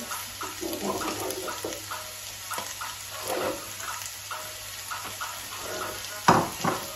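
Vegetables sizzling in a frying pan next to a pot of boiling water, with light clinks of crockery being handled and one louder knock near the end.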